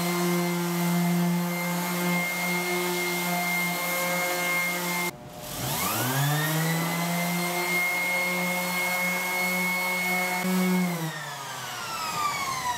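Electric random orbital sander sanding cedar boards with 120-grit paper: a steady motor whine that cuts off about five seconds in, starts again and rises back to speed, then winds down with falling pitch near the end.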